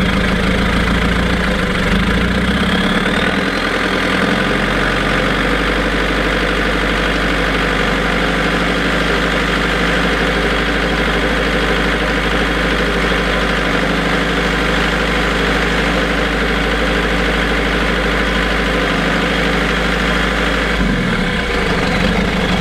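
Land Rover engine running at idle with the LT230 transfer box and the exhaust silencer removed, its noise still there without the transfer box. The low engine note shifts a few seconds in and again near the end.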